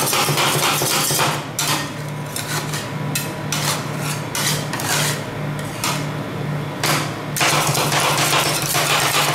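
Metal spatulas chopping and scraping ice cream and cake on the steel plate of a rolled ice cream cold plate: rapid taps and scrapes of metal on metal, with fewer, separate strikes in the middle. A steady low hum runs underneath.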